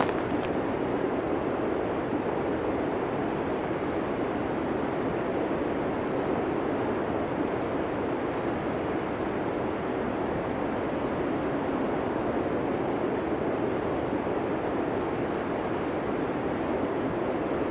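Steady blizzard wind: an even, dense rushing noise, deepest in the low-middle range, with no distinct gusts. The highest hiss drops away about half a second in.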